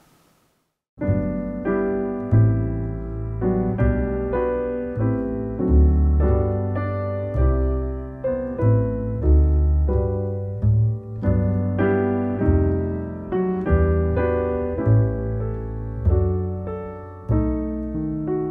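Solo piano music playing as background outro music. A steady pattern of chords with a bass line starts about a second in.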